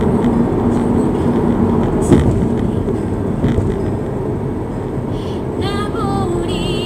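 Steady road and engine rumble of a car driving at around 70 km/h, heard from inside the car. There is a single sharp thump about two seconds in.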